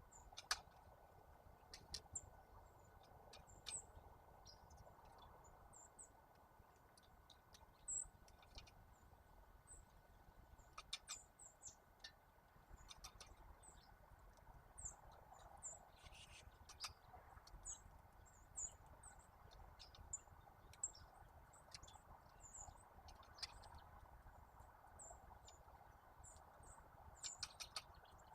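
Small birds giving many short, very high chirps, scattered irregularly, with a few sharp clicks or taps mixed in.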